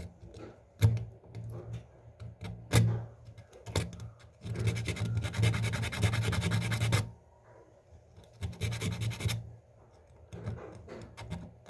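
Sandpaper rubbed against a worn clock gear's teeth to take off burrs: a few sharp clicks, then a long run of rapid scraping a few seconds in, followed by shorter bursts of scratching.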